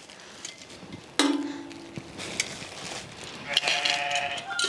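Metal tongs clicking and a plastic bag rustling as roasted poblano chiles are dropped into it to sweat. Two long bleats from a farm animal come through: a lower one starting suddenly about a second in, and a higher one near the end.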